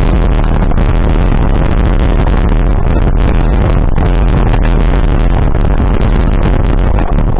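A vehicle driving, with loud, steady engine and wind noise.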